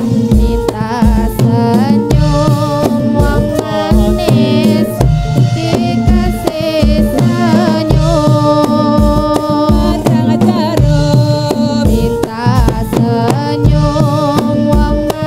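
Javanese warok dance music: hand drums keep a steady beat of about two strokes a second under a wavering melody.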